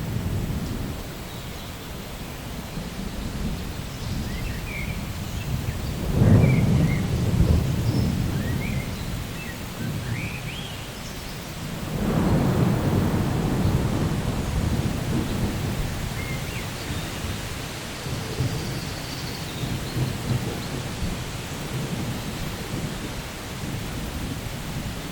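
Thunderstorm: steady rain with two rolls of thunder, one about six seconds in and a longer one starting about twelve seconds in.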